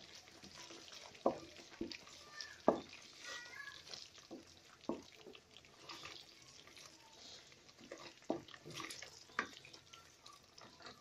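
Thick masala gravy bubbling and frying in a pan while a spatula stirs it, with a few short knocks of the spatula against the pan.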